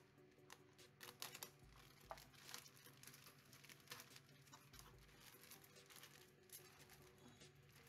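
Faint crinkling and crackling of a thin clear plastic bag as a plastic model-kit sprue is slid out of it, in many small irregular crackles.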